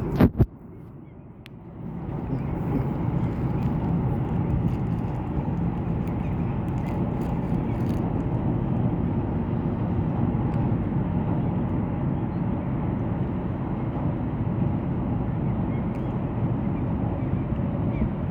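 A sharp knock at the start, then after a short quieter stretch a steady low rumble of a boat underway, its engine vibration mixed with wind on the microphone, running unchanged.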